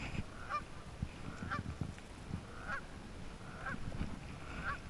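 Waterfowl squabbling on a pond: a string of short honking calls, roughly one a second, over a low rumble.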